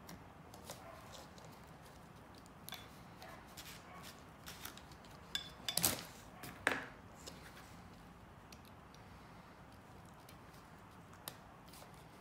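Small clicks and scrapes of handling the opened angle grinder's wiring, as crimped spade terminals are worked off the old switch and pushed onto a replacement switch. A louder cluster of sharp clicks comes about halfway through.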